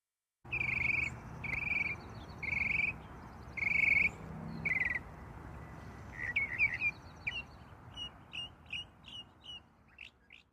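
Birds calling: five calls about a second apart, then quicker, shorter chirps at about three a second, over a steady low background hiss.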